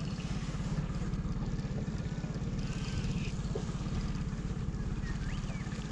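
Small boat's outboard motor running steadily at low trolling speed, a fast, even low-pitched pulsing.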